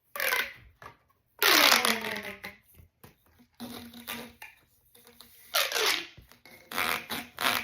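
Corrugated plastic pop tubes being stretched and compressed, giving rasping, whirring sweeps that fall in pitch. The loudest comes about a second and a half in, another follows near six seconds, and short rasps come in quick succession near the end.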